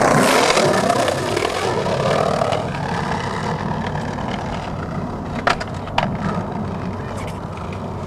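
Skateboard wheels rolling over rough concrete, a steady rolling noise, with two sharp clacks of the board half a second apart a little past the middle.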